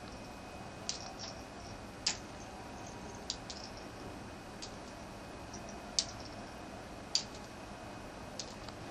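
Scattered sharp clicks at uneven intervals, about nine in all, over a faint steady hiss.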